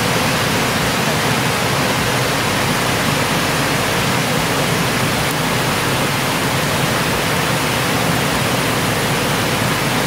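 River water rushing over a series of low rock cascades, a loud, steady rush.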